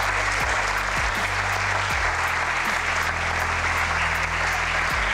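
Audience applauding over background music with a steady beat and bass line.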